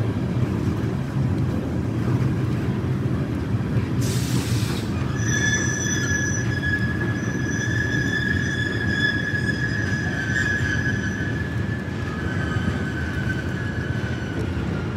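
Freight train of red wagons rolling over a rail bridge with a steady rumble. About five seconds in, its wheels start squealing in a high steady tone that lasts most of the rest and dips slightly in pitch near the end, after a brief hiss just before.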